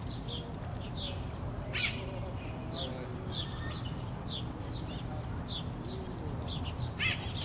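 Birds chirping: a steady series of short, high, falling chirps, about two a second.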